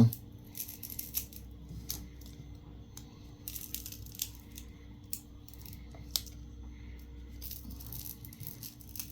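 Small, scattered clicks and brief scratchy scrapes of tools and fingers on a smartphone's parts as a stuck part is worked loose little by little, over a steady low hum.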